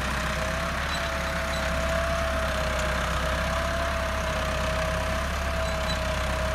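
Massey Ferguson 385 tractor's four-cylinder diesel engine running steadily under load as it pulls a zero-till seed drill, with a steady whine over the engine note.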